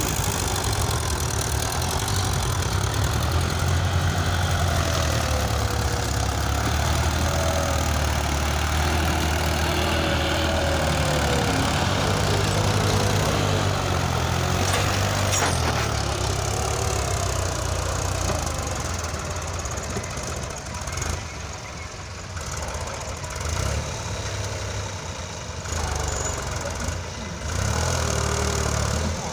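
Diesel farm tractor engines running steadily under load as they drag levelling scrapers through loose sandy soil. The low engine hum is loud at first, then eases off and becomes uneven about two-thirds of the way through.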